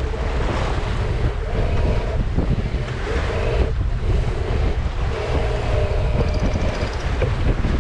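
Wind buffeting the microphone in a low rumble and water rushing along the hull of a small sailboat under sail, with a hum that comes and goes.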